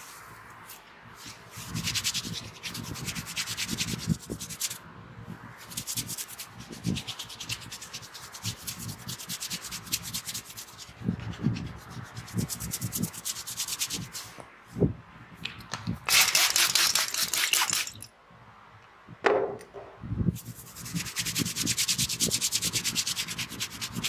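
Fingers rubbing and scrunching through oiled hair against the scalp during a head massage. The sound is a rapid rasping that comes in bursts of a few seconds, loudest about two-thirds of the way through, with a few soft low thuds between the bursts.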